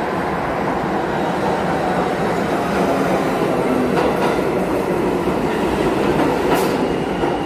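R46 subway train pulling into an underground station and rolling past along the platform: a steady rumble of wheels on rail, a little louder through the middle, with a couple of brief sharper clicks about four and six and a half seconds in.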